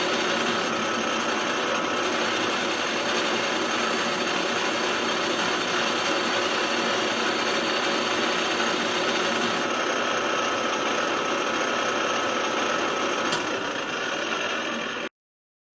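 CNC pipe-drilling machine running: a steady mechanical noise with a few held tones throughout. It cuts off suddenly near the end.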